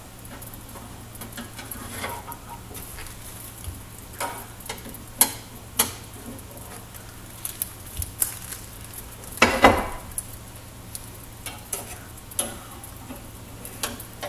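Utensil clinking, knocking and scraping against a small stainless steel pot while ramen noodles are stirred: scattered sharp clicks, with a longer clatter about two-thirds of the way in. Under it runs a steady low hum.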